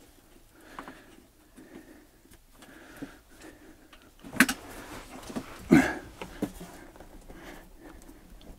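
Handling of orange power-cable plugs on a Pylontech lithium battery module: faint rustling, then a sharp click about four and a half seconds in and a second knock just before six seconds as a plug latches into its socket.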